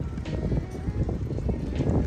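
Background music with a steady beat, a crisp hit about every second and a half over a dense low pulse.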